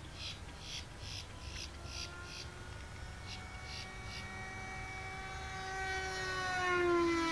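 Radio-control model airplane flying past overhead, its motor and propeller tone growing louder and dropping in pitch as it passes, near the end.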